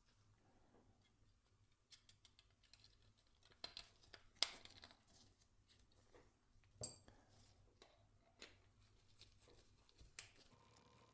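Faint, scattered clicks and taps of small plastic and metal parts being handled: an anti-backlash nut being worked into a 3D-printed crosshead. The loudest tap is about four seconds in, and one near seven seconds rings briefly like metal.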